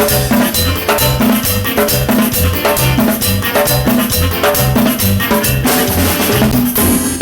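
Band music with a drum kit keeping a steady beat under repeating bass notes.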